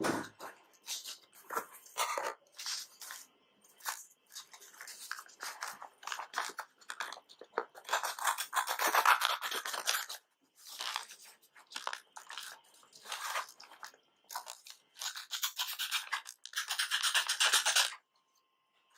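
Small stainless-steel blade of a credit-card multitool scraping in short repeated strokes, with two longer stretches of steady scraping, about eight and fifteen seconds in.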